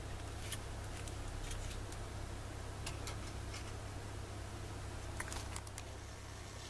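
Light plastic clicks and taps as N-gauge 205-series model railcars are handled and set down on a tabletop, several scattered through and a quick cluster about five seconds in, over a steady low hum.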